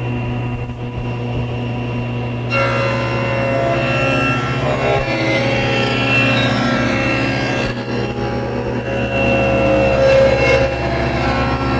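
Table saw running with its blade tilted to 45 degrees, steady motor hum, as it rips a bevel along the edge of a wooden panel. The cutting noise starts abruptly about two and a half seconds in, when the blade bites into the wood, and changes near eight seconds as the cut goes on.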